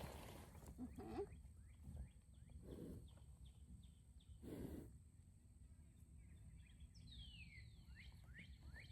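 Faint bird chirps, short and repeated, with one longer falling call about seven seconds in, over a quiet outdoor background; two soft rustles come in the middle.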